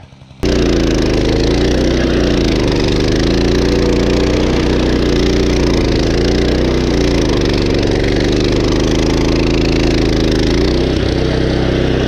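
Walk-behind stump grinder's small gas engine running hard while the cutting wheel grinds into a palm stump, with a dense grinding hiss over the engine note. The engine pitch sags briefly a few times as it bogs under load, then recovers. The sound cuts in abruptly about half a second in.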